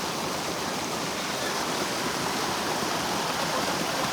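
Steady rush of flowing water from a stream or small cascade, an even hiss with no breaks.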